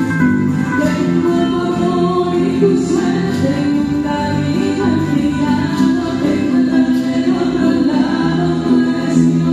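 Music of slow, held chords with choir-like singing voices, steady and loud.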